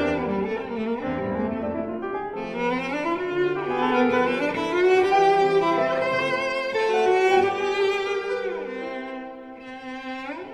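Orchestral soundtrack music led by bowed strings, with sustained chords and moving melody lines. It thins out and quiets near the end, then a quick upward sweep leads into the next phrase.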